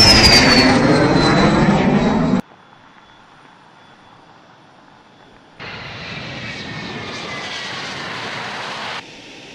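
Strategic bomber passing overhead: loud engine noise with a high whine falling in pitch, cut off suddenly a little over two seconds in. After a faint stretch of distant engine noise, a bomber's engines on the runway come in again about halfway through and drop away shortly before the end.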